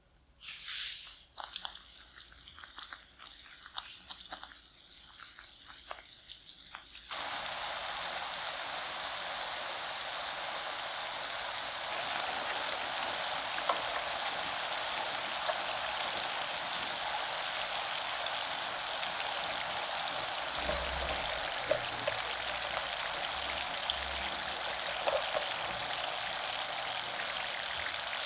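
Cooking oil sizzling in a frying pan as potato sticks fry. At first it is a light crackle with scattered pops. About a quarter of the way in it jumps suddenly to a steady, dense sizzle.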